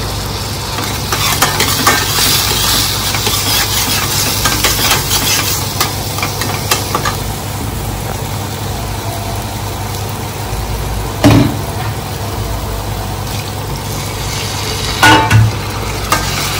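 Steel spatula stirring and scraping thick upma around a steel kadai, over a steady sizzle. A loud metal knock comes about eleven seconds in, and two more come close together near the end.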